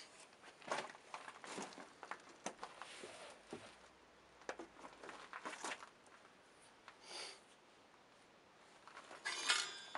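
Quiet room with faint scattered rustles and light clicks, a short louder rustle about seven seconds in and a cluster of rustling near the end.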